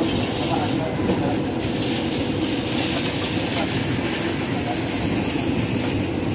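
Steady kitchen background noise around a vertical shawarma broiler: an even rumble and hiss with a faint constant hum and faint voices underneath.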